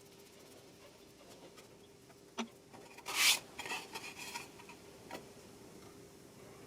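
Brief hand scraping on wood: a light knock, then a short loud scrape and about a second of rougher rubbing, and another light knock.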